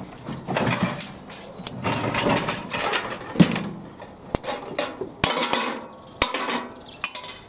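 Microwave oven casing parts being handled and pried apart with gloved hands: irregular bursts of scraping and rattling of plastic and metal panels, with several sharp clicks.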